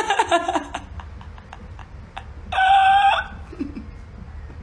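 A woman's short burst of laughter, then, about two and a half seconds in, a brief high-pitched held vocal squeal, with a few faint clicks in between.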